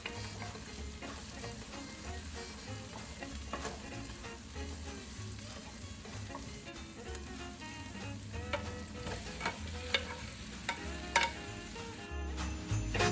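Food sizzling as it fries in a pan while being stirred, with short scrapes and clicks of the utensil against the pan.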